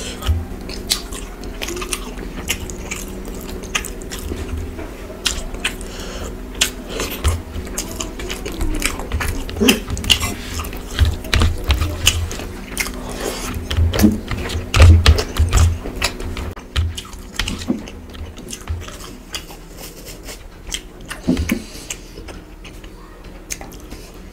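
Close-miked chewing and wet mouth sounds of a person eating rice with fish curry by hand, with many short smacks and clicks.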